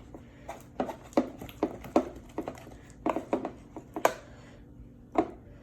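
Freshly made, very sticky homemade slime being stretched and squished by hand, giving irregular sharp wet snaps and smacks, about two a second.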